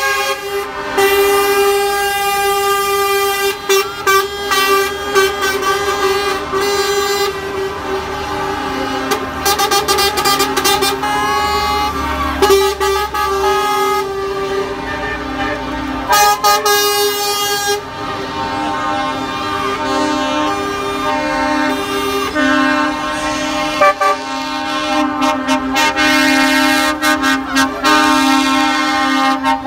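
Lorry air horns sounding, several at once in overlapping chords, with long held notes broken by runs of quick toots.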